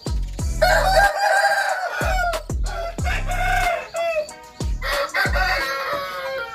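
Roosters crowing, three long crows one after another, over background music with a regular bass beat.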